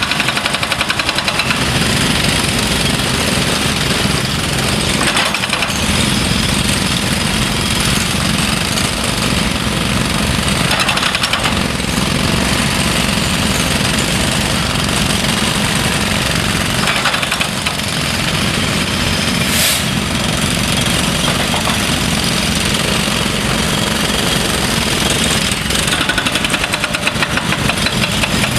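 Construction excavator working, its diesel engine running steadily under a rapid, continuous pounding.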